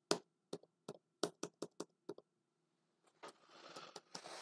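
Sharp, irregular clicks from working a computer while editing a drawing, about ten of them in the first two seconds. A soft rustling hiss starts about three seconds in.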